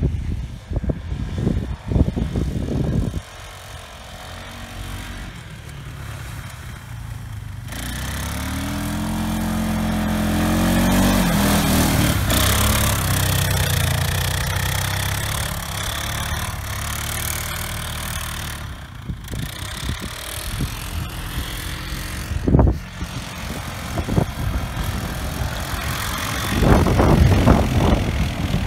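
ATV engines revving and running as the quads ride through snow. Their pitch rises and falls with the throttle, and near the end one engine runs rough and pulsing under hard throttle.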